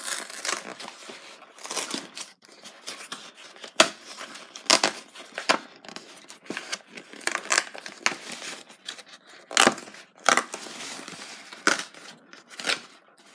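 Thin printed card packaging being torn open by hand in a series of short, sharp rips, with rustling as the card is handled.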